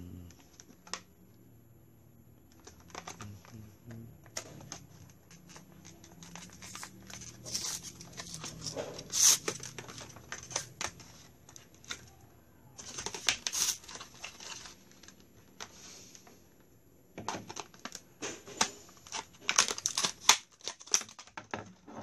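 Scissors cutting a stiff plastic blister pack and the clamshell crackling, crinkling and snapping as it is pulled apart: a string of irregular clicks and crinkles, with louder bursts about nine, thirteen and twenty seconds in.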